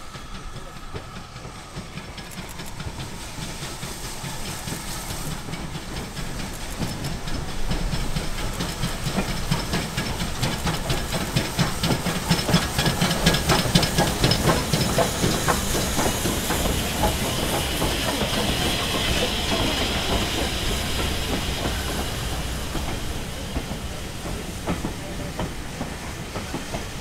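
Steam locomotive hauling a rake of coaches past at close range, with steam hissing and a run of clicks from the wheels. It builds from the start, is loudest as the engine passes about halfway through, and eases off as the coaches roll by.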